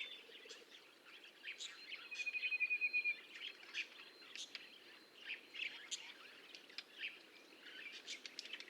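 Budgerigars chirping faintly in short scattered calls, with a quick run of rapid repeated notes about two seconds in.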